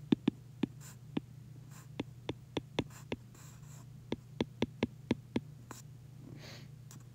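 Apple Pencil tip tapping on an iPad's glass screen while handwriting letters: a string of sharp, irregular clicks over a steady low hum.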